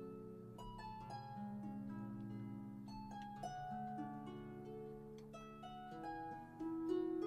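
Gentle background music of slow, plucked notes that ring on and overlap.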